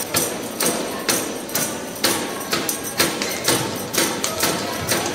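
Spectators beating out a steady rhythm, about two sharp strikes a second.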